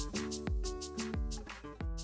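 Background music with a steady beat, about two beats a second, and plucked notes.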